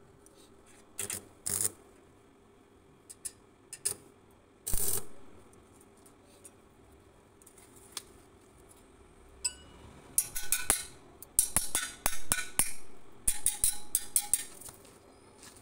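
Metal knocking and clinking as fittings and a small steel rod are worked against a stainless steel flagpole tube. A few sharp knocks come in the first five seconds, then a quick run of ringing metallic clinks from about ten seconds in.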